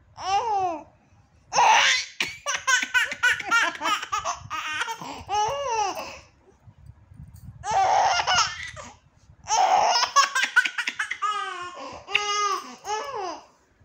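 Nine-month-old baby girl laughing in about six bouts of quick, pulsing giggles with short pauses between them.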